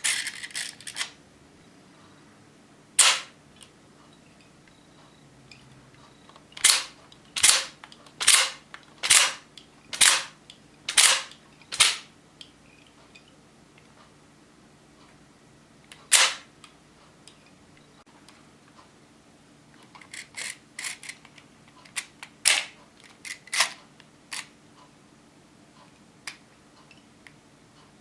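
Sharp plastic clacks of a 3D-printed Hino-Komuro model pistol's action being worked by hand. There is a single clack, then a run of seven clacks a little under a second apart, another single one, and a cluster of lighter clicks and clacks near the end.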